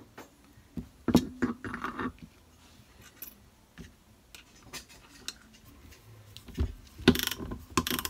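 Metal parts of a boat engine's raw water pump being handled and fitted: a cluster of clinks and knocks about a second in, sparse ticks through the middle, then a denser run of quick metallic clicks near the end as a socket ratchet goes onto the pulley nut.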